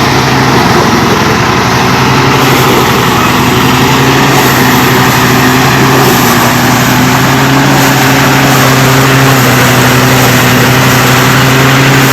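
A small engine running steadily at an unchanging speed, loud and close.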